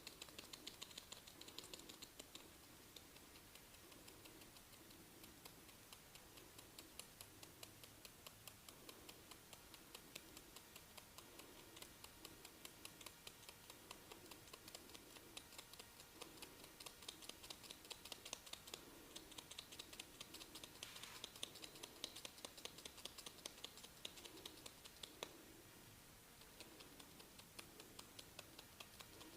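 Rapid, crisp clicking and crackling from a barber's fingers working through the hair and over the scalp during a head massage, many small clicks a second, with a soft low pulse about once a second.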